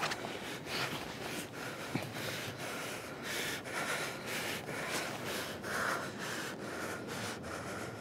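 Heavy, quick breathing of people close together, with short breaths in and out about two a second and the odd sniff.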